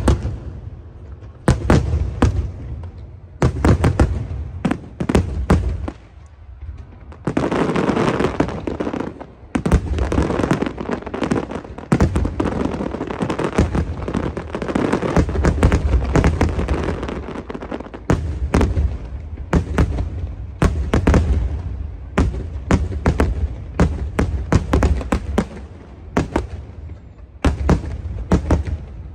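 Aerial fireworks going off in quick succession, sharp bangs and booms. From about seven seconds in to about eighteen seconds they run together into a dense barrage of crackling bursts.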